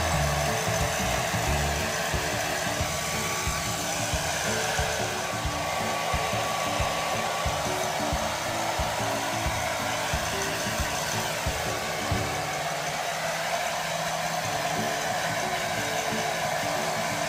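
Handheld hair dryer running steadily, blowing on a kitten's wet fur.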